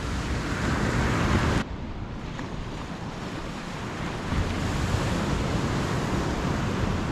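Wind buffeting the microphone over surf on an open beach: a steady rushing hiss with a low rumble. About a second and a half in the sound abruptly turns duller, losing its top end.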